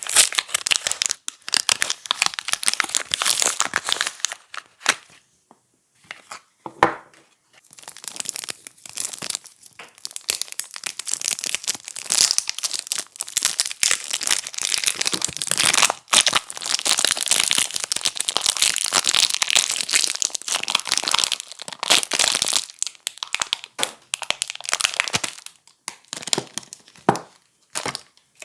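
Packaging being torn open and unwrapped from bars of soap: a near-continuous crinkling and tearing, with a break of a couple of seconds about five seconds in.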